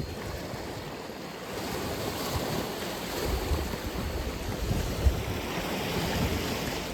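Atlantic Ocean surf: waves breaking and washing in, a steady rush of noise that swells about a second and a half in. Irregular low gusts of wind buffet the microphone underneath.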